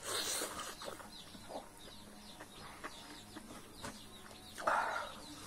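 A hen clucking in the background, with one call at the start and another near the end, over soft chewing and the squelch of fingers mixing rice into curry.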